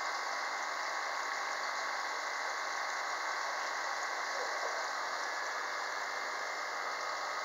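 Steady hum and hiss of aquarium pumps and water circulation, unchanging throughout.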